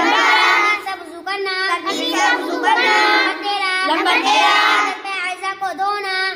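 A young girl's voice reciting in Urdu with hardly a pause, in a chanting, sing-song delivery.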